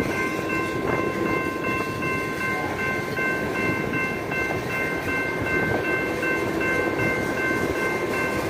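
Coal train freight cars rolling steadily past a grade crossing, a continuous rumble and rattle of wheels on rail, with the crossing's warning bell ringing over it as a steady high ringing.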